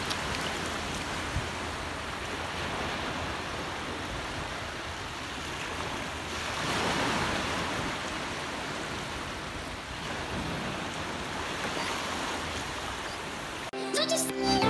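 Small waves breaking and washing up a sandy beach, a steady rush of surf that swells about seven seconds in. Electronic music starts near the end.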